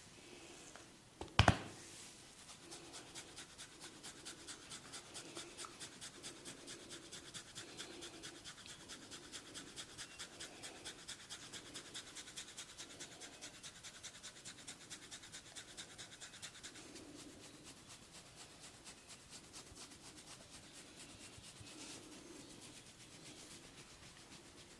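Fingers scratching briskly through the hair and scalp in a fast, even rhythm during a head massage, growing fainter in the last few seconds. One sharp, loud crack comes about a second in.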